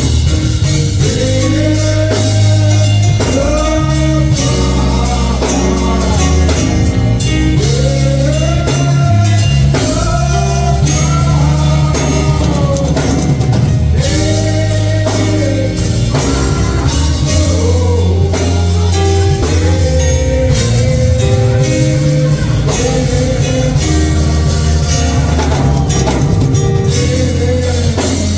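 Gospel music from a church band, with drums, bass and guitar under a singing voice and a sliding, arching melody line.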